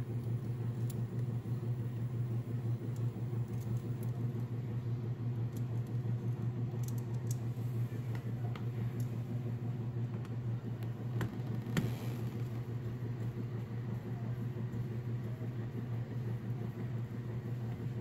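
Steady low hum, with a few faint clicks and rustles of wires and a screwdriver being handled at a dishwasher's metal junction box as the ground wire is fastened under a screw.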